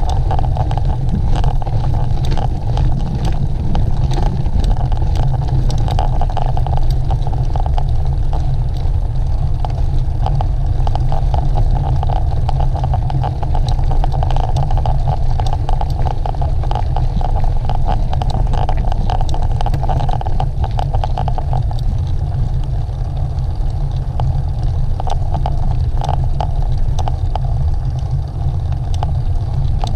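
Heavy, steady wind rumble on a moving camera's microphone, with a constant rattle and clicking of a mountain bike rolling over a rough trail.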